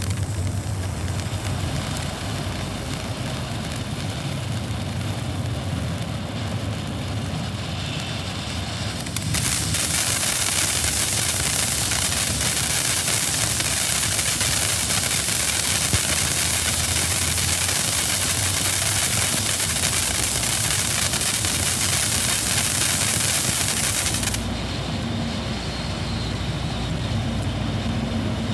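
Black Cat 3 Minute Fountain, a consumer ground fountain firework, burning with a steady hiss of spraying sparks. About ten seconds in, the hiss turns much louder and brighter for some fifteen seconds, then drops back to a softer spray.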